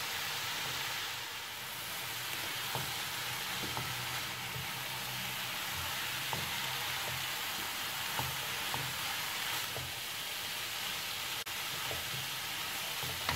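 Chicken and vegetables (shredded cabbage, carrot, green capsicum) sizzling steadily as they are stir-fried in a wok, with a spatula lightly scraping and tapping against the pan as it tosses them.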